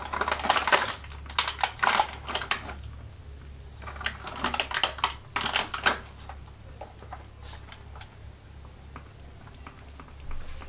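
Pneumatic Lego Technic garbage truck mechanism working, its plastic parts and the cardboard and paper trash it moves giving quick clicking and rattling in two bursts, the first lasting about three seconds and the second starting about a second later and lasting about two. A steady low hum runs underneath.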